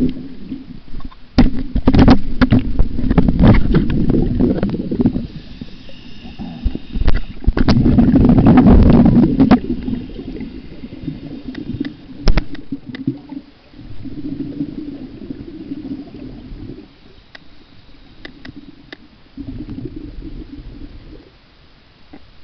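Muffled underwater noise picked up by a camera submerged in lake water: water moving and gurgling around the housing in low rumbling surges, loudest in two stretches in the first half, with scattered sharp knocks.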